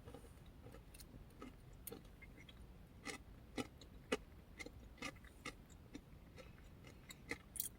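Faint, irregular crunching clicks of someone chewing a granola parfait close to the microphone.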